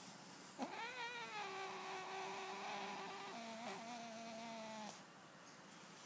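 A domestic cat giving one long drawn-out meow of about four seconds, starting about half a second in; its pitch wavers at first, then drops lower partway through before it stops.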